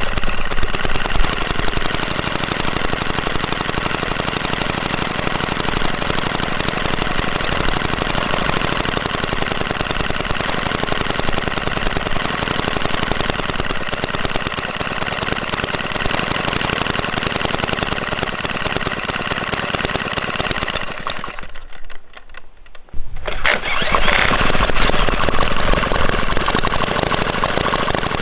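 Hoglet model V-twin petrol engine running with rapid, even firing. About three-quarters of the way through it dies away for a moment, then runs again.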